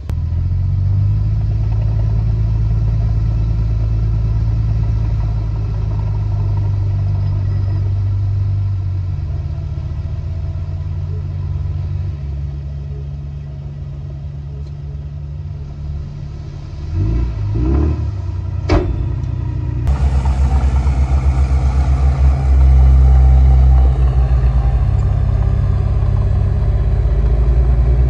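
Heavy diesel earthmoving machinery running steadily with a low engine rumble. A short run of metallic clanks comes about two-thirds of the way through.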